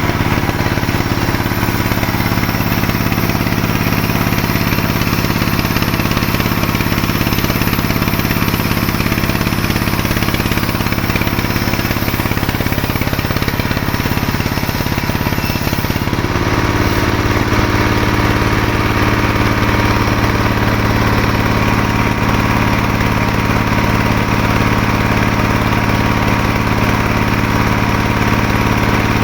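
Sawmill machinery running steadily with a loud engine hum and a hissing whine. About halfway through the sound changes abruptly and carries on steadily.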